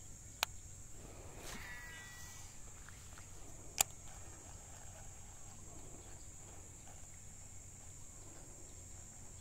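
Faint outdoor ambience: a steady high-pitched insect drone, broken by two sharp clicks, a small one about half a second in and a louder one near four seconds.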